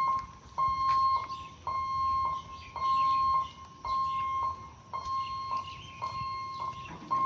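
Electronic warning beeper at a railway level crossing, sounding a steady single-pitched beep about once a second.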